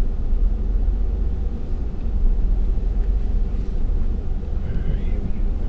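Steady low road and engine rumble inside a moving pickup truck's cab as it tows a travel trailer.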